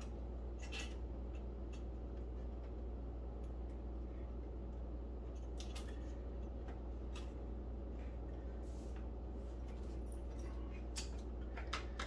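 Faint, scattered clicks and small taps of hands working a microwave's control circuit board in its plastic touch-pad housing, over a steady low hum.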